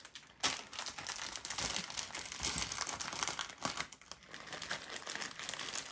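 Plastic chocolate-bar wrappers crinkling and rustling as a stack of bars is handled and pressed in among clothes in a packed suitcase, in an irregular run of small crackles.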